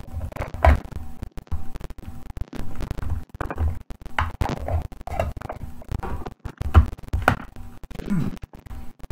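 Irregular knocks, taps and scrapes of things being handled on a table close to the microphone, coming every half second to a second or so.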